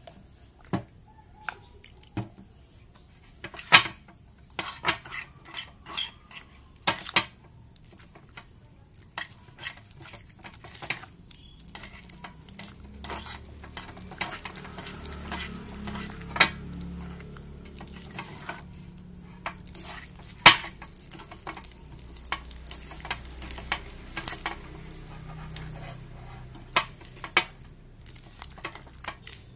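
Metal spoon stirring clear slime made with Rinso liquid detergent in a bowl: irregular clinks and scrapes of the spoon against the bowl, with a wet, sticky stirring noise that becomes steadier from about halfway as the slime thickens.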